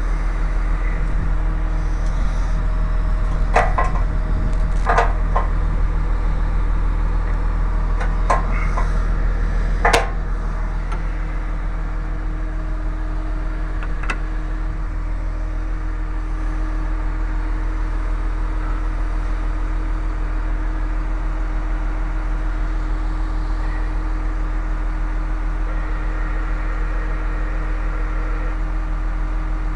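A heavy engine idling steadily, with several sharp metallic knocks and clanks in the first ten seconds.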